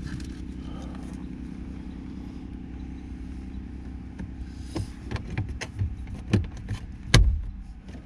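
Plastic door trim pieces being handled and pressed into a car door panel: a series of clicks and taps from about five seconds in, the loudest knock about seven seconds in. A steady low hum runs underneath.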